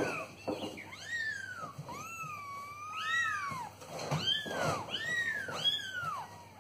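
Two-week-old kittens mewing over and over, high thin cries that each rise and fall in pitch, about ten in quick succession, with one longer drawn-out cry about two seconds in.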